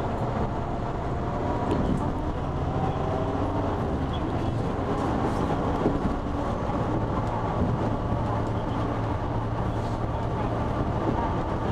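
Diesel guideway bus running at steady speed along its elevated concrete guideway, heard from inside the front of the cabin: a constant low engine hum over tyre and running noise.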